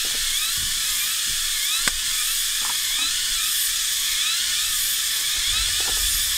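Dense, steady cicada chorus drones loudly with a repeating pulsing chirp, and a sharp click sounds about two seconds in.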